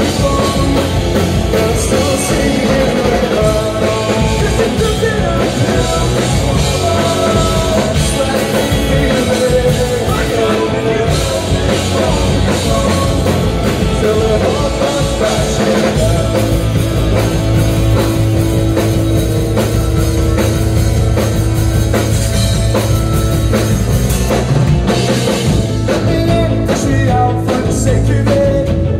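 Live rock band playing: electric guitars, bass guitar and drum kit, with a singer's vocals, loud and continuous. From about halfway through the band holds a low sustained chord.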